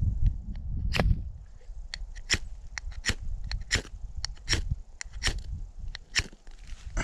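Spine of a Schrade SCHF37 survival knife scraped down its ferro rod in short, sharp strikes, about two a second, throwing sparks to light tinder.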